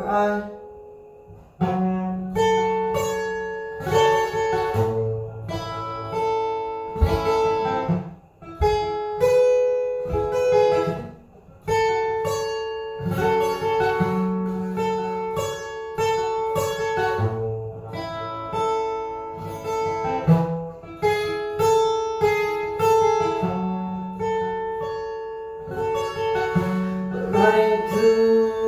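Solo acoustic guitar, chords picked and strummed in an instrumental passage. The notes ring out and fade in a few short pauses before the playing picks up again.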